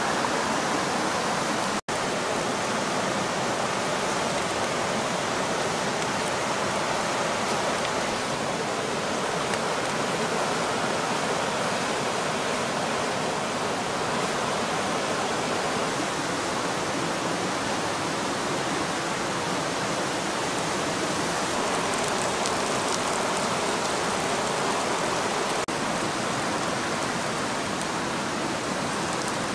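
River water rushing steadily past, with a momentary break in the sound about two seconds in.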